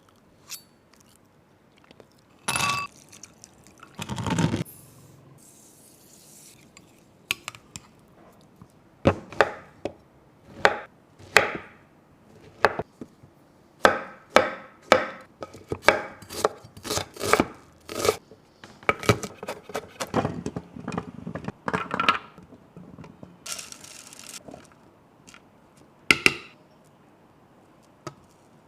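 Kitchen food-preparation sounds: a long run of separate knocks, taps and clinks of utensils and cookware, coming several a second through the middle stretch, with two louder knocks in the first few seconds.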